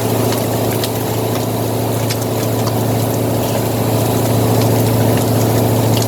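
Foam-scrap recycling equipment (silo feed, dust collector and recycling extruder) running: a steady machine hum with a strong low drone and a few faint ticks.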